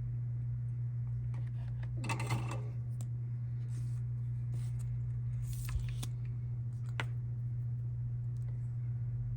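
Small clicks and a couple of short scrapes from handling an RCA connector and soldering tools, over a steady low hum.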